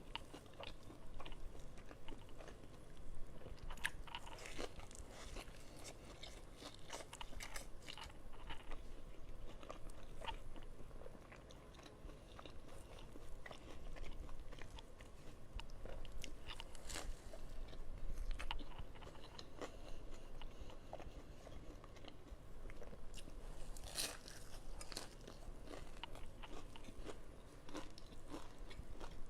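Close-miked eating sounds: a person biting and chewing crunchy food, with frequent short crackling crunches and a few louder bursts of crunching spread through.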